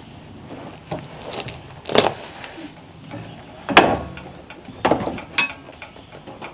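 Metal knocks and clanks from tools and parts being handled on a Norwood portable sawmill during belt removal: half a dozen sharp hits, the loudest about two and four seconds in, one ringing briefly near the end.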